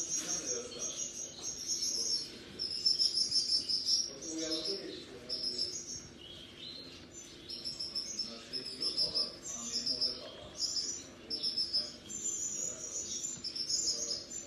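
Small birds chirping in rapid high trills, one after another, with quieter lower-pitched calls underneath.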